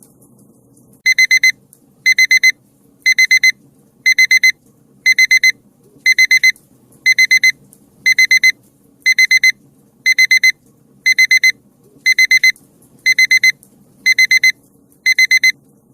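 Digital alarm-clock beeping marks the end of the countdown. It starts about a second in as rapid groups of four high beeps, repeating about once a second.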